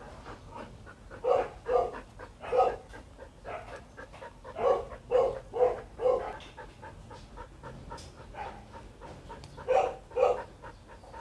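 Dog barking in short volleys of two to four barks, with pauses between volleys: a pair in the first two seconds, a run of four about halfway through, and another pair near the end.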